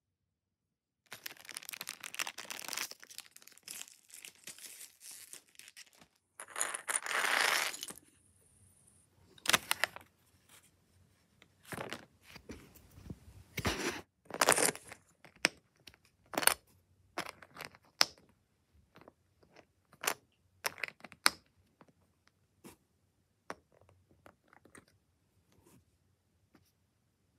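Plastic Lego minifigure blind bag crinkling and tearing open, loudest about a quarter of the way through, followed by scattered sharp clicks and rustles of small plastic Lego pieces being handled and snapped together.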